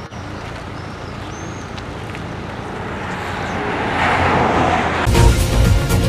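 Steady outdoor background noise that grows louder about four seconds in. About five seconds in, news-programme theme music with a heavy electronic beat cuts in.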